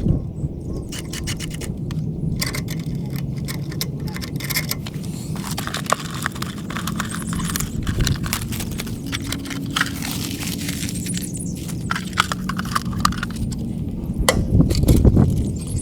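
Irregular metallic clicks, clinks and scrapes from hardware and hand tools being handled while a temporary-power outlet box is assembled and fastened, over a steady low hum.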